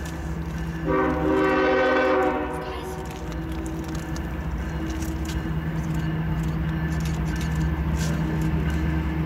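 A diesel freight locomotive's multi-chime air horn sounds one loud chord about a second in, lasting about a second and a half. The locomotive's engine then keeps up a steady low rumble as the train approaches, with scattered clicks.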